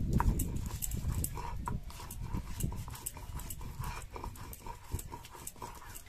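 Stone roller rocked and ground over a flat stone slab (sil-nora), crushing green chillies, ginger and black pepper into a wet paste: a low, rhythmic scraping grind with repeated knocks, about two to three a second, loudest in the first second.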